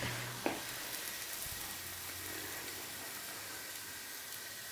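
Pancake batter sizzling in frying pans, a steady soft hiss, with one small click about half a second in.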